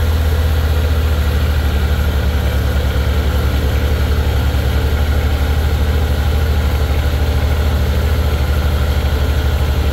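Vehicle engine running steadily under way: a loud low drone with a fast, even pulse.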